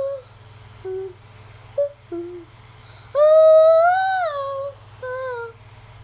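A young girl's voice making wordless sung notes: a few short notes, then a long note about halfway through that rises and falls, and one more short note. A steady low hum runs underneath.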